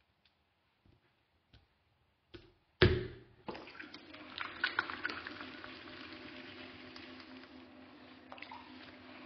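A few faint taps, then about three seconds in a single loud thump as a lump of clay is slapped onto the potter's wheel head. Then the wheel runs with a steady hum while wet hands work the spinning clay, with wet squelching sounds.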